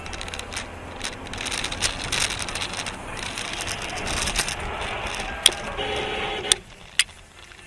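Dashcam audio from inside a moving car: steady road and engine noise with a rattly edge. Three sharp knocks come in the last couple of seconds, and the noise drops away after the second.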